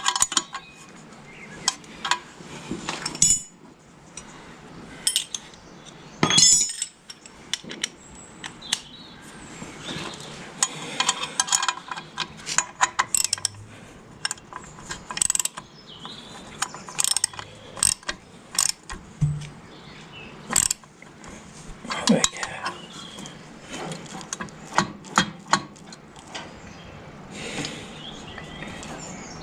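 Irregular metallic clicks, knocks and scraping of hand tools and brake linkage parts being worked on a 1955 Fordson Major tractor, with several sharper clanks scattered through.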